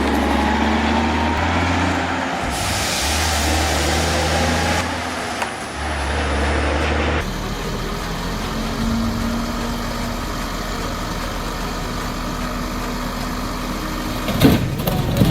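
Heavy vehicle or machine engine running steadily, changing abruptly a few times, with a burst of hiss early on and several heavy thumps near the end.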